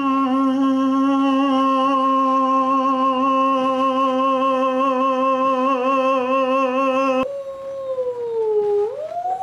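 A man's voice holding one long, steady hooting note in imitation of a whale call; about seven seconds in it cuts abruptly to a woman's voice sliding down, then swooping up and down again in a whale-like moan.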